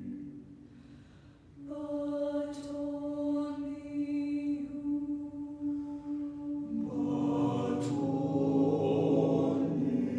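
Choir singing slow, sustained chords. The sound dies away briefly near the start, a held chord enters about two seconds in, and a fuller, louder chord swells in around seven seconds.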